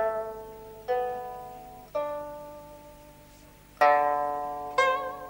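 Background music on a plucked string instrument: chords plucked about a second apart, each ringing and dying away slowly, with a longer pause around the middle.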